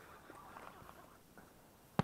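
Faint background noise with a few soft rustles, then a sharp double click right at the end.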